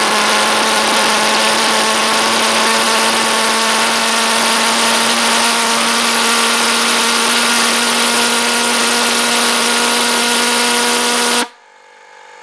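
Small Hobbyking RC pulse jet engine running on its stand: a loud, steady buzzing drone at one unchanging pitch over a harsh rushing hiss. It cuts off abruptly near the end.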